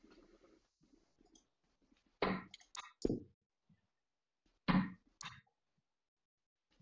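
Short clicks and knocks in two clusters about two seconds apart, as darts are pulled out of a bristle dartboard.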